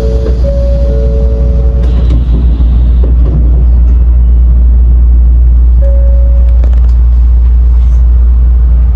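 Low, steady rumble of an N700A Shinkansen heard from inside the passenger car. Two steady electronic tones sound over it in the first two seconds, and one tone returns briefly about six seconds in.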